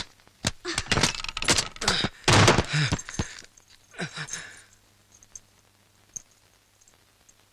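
Film dialogue sounds: a man's voice exclaiming and gasping, mixed with a few sharp thuds, for about the first three seconds, then a shorter cry about four seconds in. After that it is nearly quiet, with only a few faint ticks.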